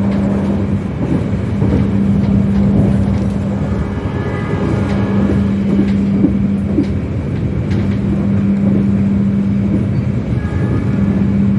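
Argo Bromo Anggrek passenger train running at speed, heard from inside the carriage: a steady rumble of wheels on the track with a constant low hum.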